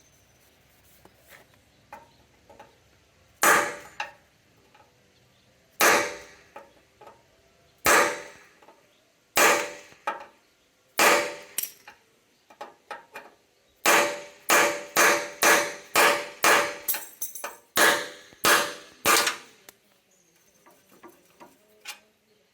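A hammer striking metal, each blow ringing. First come half a dozen blows a couple of seconds apart, then a few light taps, then a fast run of about a dozen blows at two to three a second.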